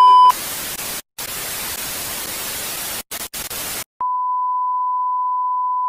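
Television 'please stand by' sound effect: a short steady beep that stops just after the start, then TV static hiss for about three and a half seconds, broken by a few brief dropouts. A steady test-tone beep starts at about four seconds in.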